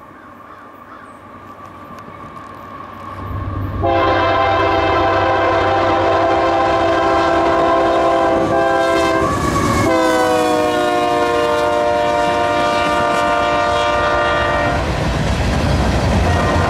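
Union Pacific freight train approaching at speed: its rumble grows louder, then the locomotive's several-note air horn sounds for about eleven seconds with a brief break, its pitch dropping as the locomotive passes. Freight cars then roll by with steady wheel clatter.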